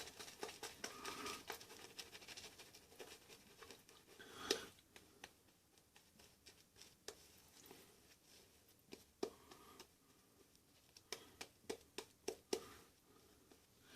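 Faint crackling scrape of a Merkur 39C slant-bar double-edge safety razor cutting lathered stubble, in short irregular strokes. The strokes are loudest about four and a half seconds in, with a quieter gap in the middle.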